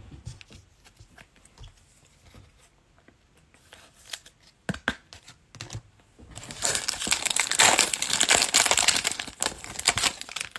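A 2021 Playoff Football trading-card pack's wrapper being torn open and crinkled by hand. It starts about six seconds in and lasts about four seconds, after a few faint handling clicks.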